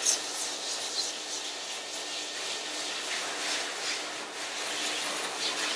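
Pet force dryer running on low: a steady rush of air from the hose nozzle as it is worked through a dog's curly coat, rising and falling slightly as the nozzle moves, with a faint steady hum underneath.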